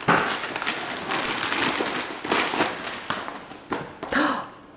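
Gift wrapping paper crinkling and tearing as a small child rips it off a present: a dense, irregular crackle that dies away near the end.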